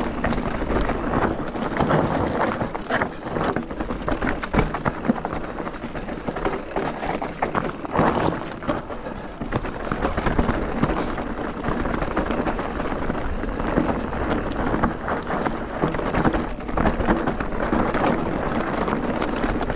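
Wind rushing over the microphone of a riding e-bike's camera, with irregular knocks and rattles from the bike on a rough trail.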